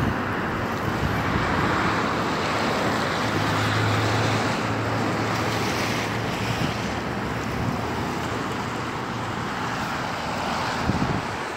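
Steady outdoor noise of wind buffeting the microphone, mixed with road traffic, with a low vehicle hum from about three to nine seconds in.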